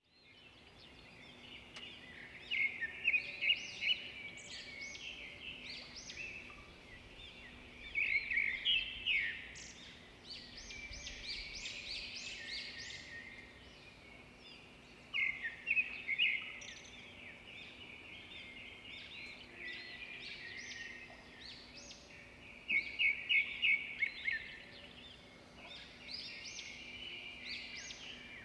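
Songbirds chirping and singing, with bursts of rapid high chirps about every six to seven seconds and softer twittering between them.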